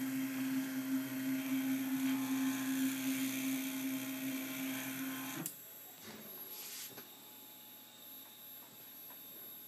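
Stepper motors of a home-built Ox CNC router driving a pen across paper on a test run: a steady whine with a high hiss, which stops with a click about five and a half seconds in. A fainter steady electrical hum remains after it.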